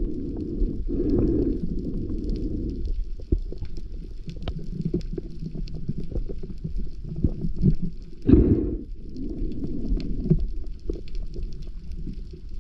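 Muffled underwater sound picked up through a camera housing: a low rumble of moving water with faint scattered crackling clicks, and a louder whooshing swell about eight seconds in.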